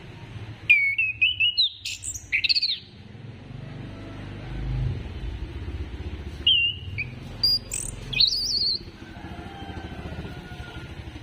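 Chestnut-capped thrush (anis kembang) singing: two bursts of quick, varied whistled phrases with sliding notes, one shortly after the start and one in the middle, each lasting about two seconds. A steady low hum runs underneath.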